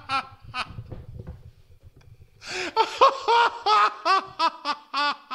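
A man laughing hard in short, rhythmic 'ha-ha' pulses. About half a second in, the laugh drops to a quieter, low croaky wheeze, then starts up loud again after about two and a half seconds.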